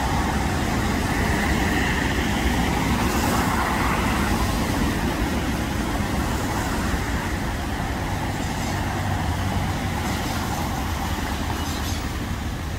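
Road traffic passing on a wet street: a steady hiss of tyres and engines, a little louder in the first few seconds.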